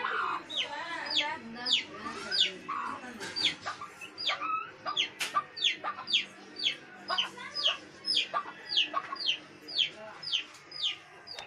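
Chick peeping over and over: short, high calls that each fall in pitch, about two to three a second. A few lower, wavering calls, likely from a hen, come in the first few seconds.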